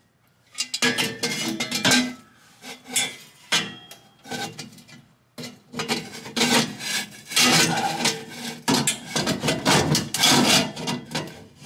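Metal exhaust pipe sections clanking and scraping against each other as one pipe is forced onto another's slip-fit collar. The collar is slightly bent, so it won't slide on. About a second of quiet comes first, then irregular knocks and scrapes.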